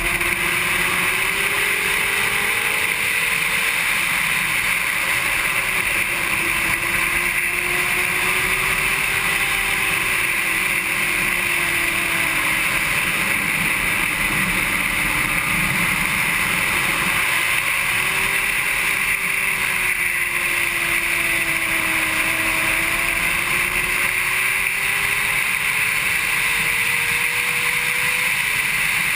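Honda CBR600RR's inline-four engine under way at speed, its pitch rising and falling over several seconds as the revs climb and drop, under a strong steady rush of wind.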